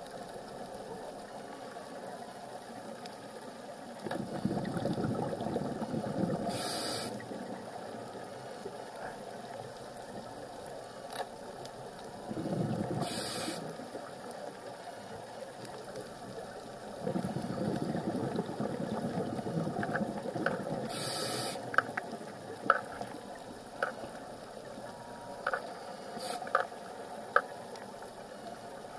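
Scuba diver breathing through a regulator, heard underwater: three exhalations of bubbles rumbling past, each with a short hiss, about eight seconds apart. Sharp clicks come every second or so in the last third.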